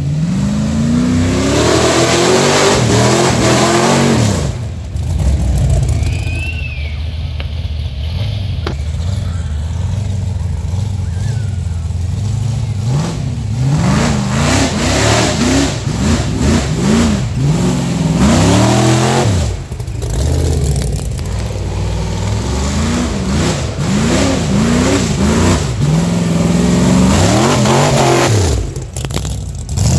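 Formula offroad buggy's engine revving hard in repeated bursts, each rising and falling in pitch. It runs steadier and lower for several seconds after a long opening rev, then comes back in a string of quick throttle blips.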